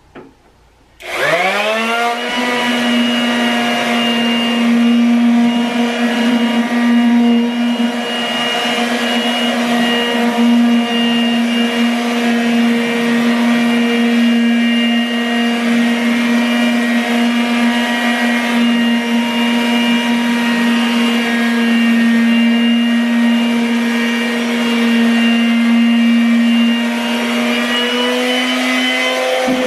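Corded electric hand sander switched on about a second in, its motor winding up in pitch and then running steadily with a loud whine as it is pressed against a popcorn-textured ceiling to sand the texture off.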